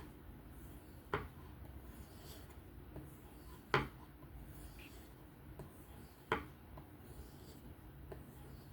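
3V steel knife blade stroked freehand across a 1200-grit sharpening stone, a soft steady scraping, with three sharp clicks about two and a half seconds apart.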